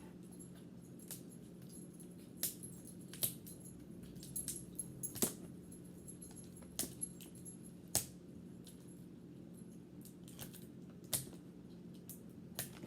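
Small hard objects and packaging being handled on a table: scattered light clicks and taps at irregular intervals, over a faint steady hum.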